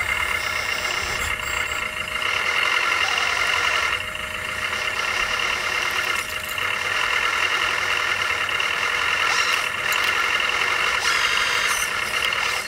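1/14-scale RC trucks and construction machines running: a steady high-pitched whine of electric motors and gearing, its level stepping up and down every couple of seconds.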